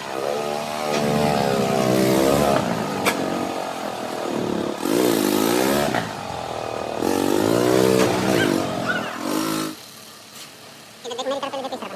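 A power tool's motor running under load, its pitch repeatedly dipping and recovering with a hiss of working metal above it. It cuts out abruptly about ten seconds in.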